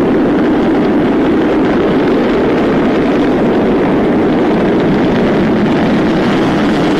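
Starship SN5's single Raptor rocket engine firing in flight during a low hop, heard from afar as a loud, steady, unbroken rushing noise.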